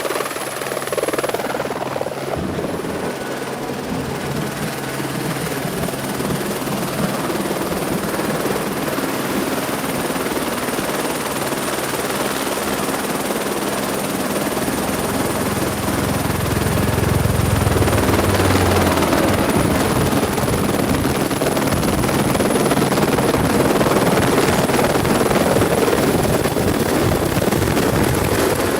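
Helicopter running steadily with its rotor and a high turbine whine, growing louder in the second half as if coming closer.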